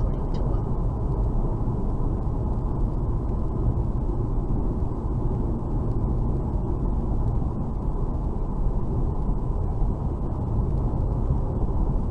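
Steady low road and engine rumble inside a car's cabin cruising at highway speed.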